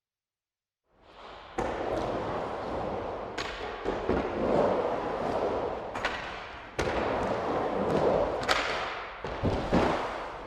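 Skateboard rolling over pavement, its wheels making a steady rumble that fades in about a second in, broken by sharp clacks every second or two and a quick cluster of them near the end.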